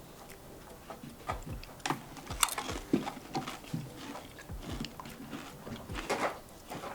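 Pringles potato crisps being bitten and chewed, with irregular crisp crunches and chewing noises.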